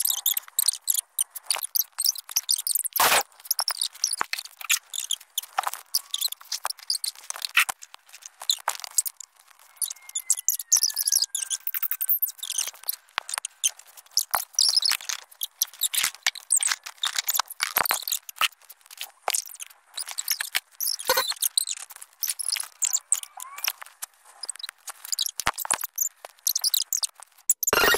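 Home-video audio fast-forwarded at eight times speed: rapid, high-pitched, choppy squeaky chatter broken by many short clicks.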